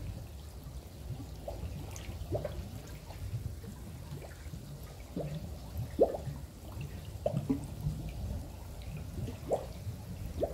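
Water in a koi pond: scattered small drips and plops, irregular and not rhythmic, with the loudest plop about six seconds in, over a low steady rumble.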